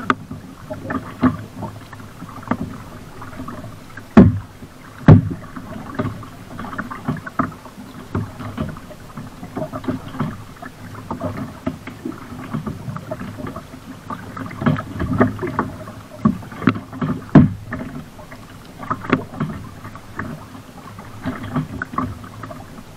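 Kayak paddle strokes: a double-bladed paddle dipping and splashing alongside a sit-on-top kayak, with water swishing and dripping between strokes. A few sharp knocks stand out, the loudest about four, five and seventeen seconds in.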